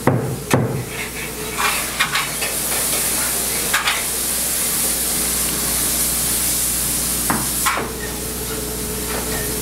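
Spray foam insulation gun hissing as two-part foam is sprayed onto the wall framing, with a few knocks and clicks in the first couple of seconds. Near the end the hiss eases off and a steady hum is left.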